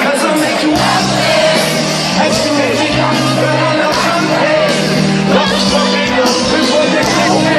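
Live band music played loud over a festival PA, with singing and a steady beat, heard from the crowd.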